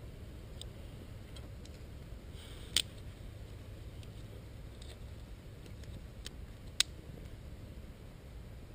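Scattered sharp clicks and snaps of small dry twigs around a smouldering jute firelighter in a stick bundle, two of them loud (about three seconds in and near seven seconds in), over a steady low background rumble.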